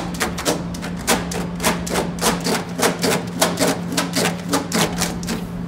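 Quick sharp taps on pizza dough on a stainless-steel counter, about three or four a second, stopping shortly before the end, over a steady low electrical hum.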